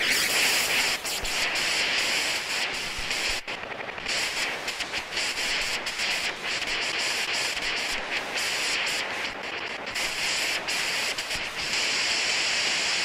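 Electronic noise texture from a synthesizer: a steady hiss like static or surf, crackling with fine clicks, that dips briefly about three and a half seconds in.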